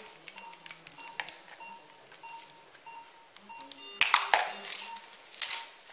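Patient monitor beeping its pulse tone, a short beep about every 0.6 seconds. About four seconds in there is a loud burst of hiss or rustle, and a shorter one near the end.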